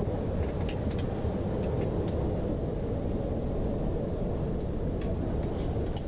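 Steady low rush of wind and water around a sailboat under way in strong wind, heard from inside the sheltered cockpit, with a few faint clicks of a spoon against a bowl.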